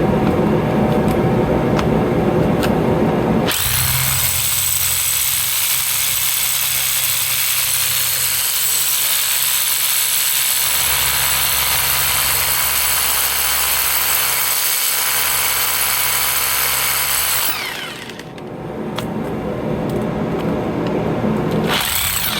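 Hammer drill boring a hole into stone, running steadily. Its sound changes sharply about three and a half seconds in, and it eases off briefly near eighteen seconds in before running again.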